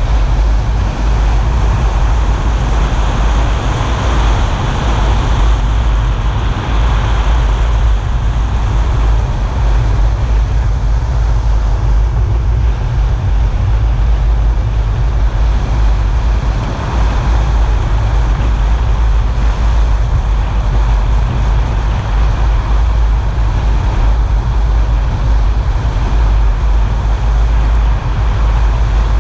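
A car driving on wet asphalt: steady tyre and road noise, with a heavy low rumble under an even hiss.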